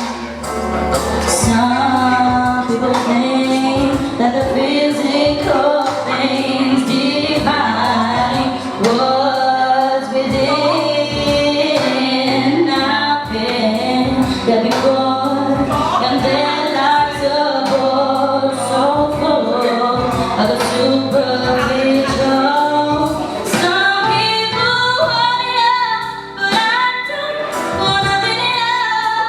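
A woman singing a song over music with a steady beat.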